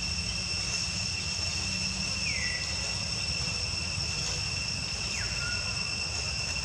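Steady high-pitched drone of insects in chorus, with a low rumble beneath. Two short falling whistles come about two and five seconds in.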